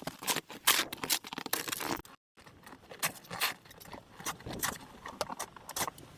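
Snow shovel scraping and crunching through snow in a string of quick, irregular strokes, with a brief cut to silence about two seconds in.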